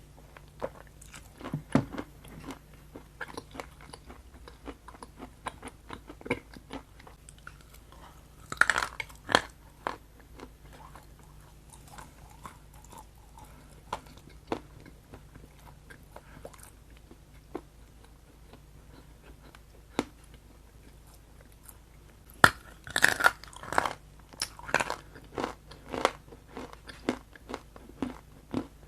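A person biting and chewing something crunchy close to the microphone, with scattered crisp crackles and louder clusters of crunching bites about nine seconds in and again from about 22 to 26 seconds.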